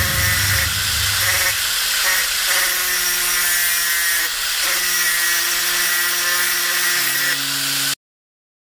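Electric angle grinder running, its abrasive disc grinding a yellow trimmer-head plate: a steady motor whine under a loud grinding hiss. It cuts off suddenly about eight seconds in.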